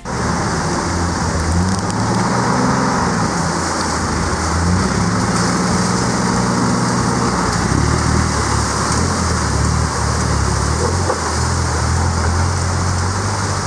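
Rushing creek water and the engine of a Toyota Land Cruiser 40-series pickup working as it crawls through the rocky stream bed, the engine note holding and shifting under load.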